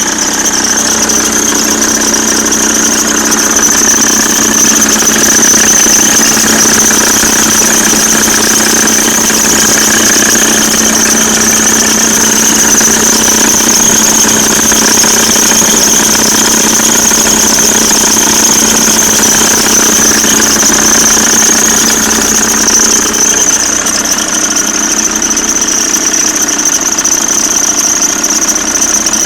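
Audi 2.5 TDI five-cylinder diesel engine (AEL) running with a loud, steady high-pitched whine over the engine note. It is an unexplained noise that gets louder with throttle and that a new timing belt and water pump did not cure. The lower engine hum drops away about 23 seconds in.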